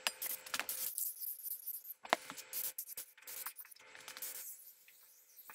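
Aerosol can of VHT high-heat spray paint hissing in a series of short bursts, laying light coats of base coat onto a steel exhaust header.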